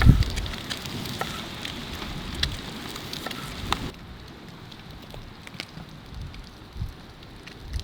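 Wood fire crackling, with scattered sharp pops and snaps. Wind rumbles on the microphone at the start.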